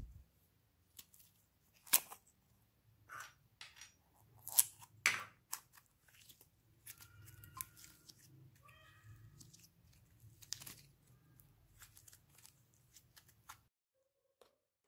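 Soft slime being stretched and pressed by hand into a glass bowl: irregular sticky clicks and pops as it pulls apart and sticks, with a few squeaky squelches in the middle. The sound cuts off abruptly near the end.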